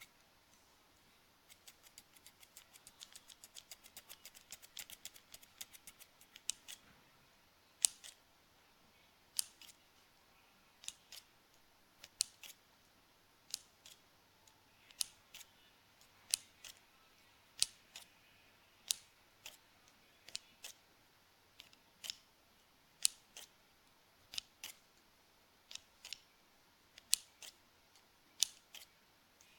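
Scissors snipping: a quick run of small snips, then single, crisper snips about every second and a half.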